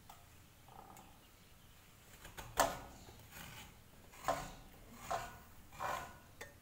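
Coconut flesh being scraped with a serrated hand grater over a steel bowl: about five short scraping strokes in the second half, spaced unevenly.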